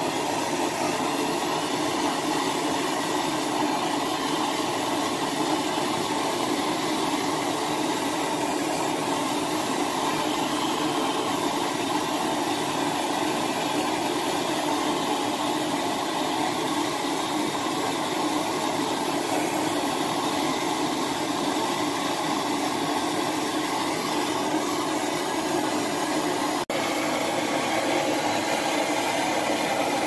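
Handheld gas torch burning with a steady hiss, its flame heating the soldered copper joints of an old shower valve to melt the solder so the valve can be taken off.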